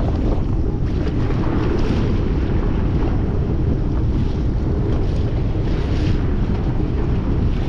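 Wind buffeting the microphone, steady and loud, over the running of a small boat's motor and water moving past the hull.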